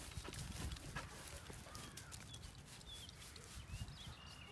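Birds chirping: scattered short, high notes, some sliding, over a low rumble, with a few light clicks.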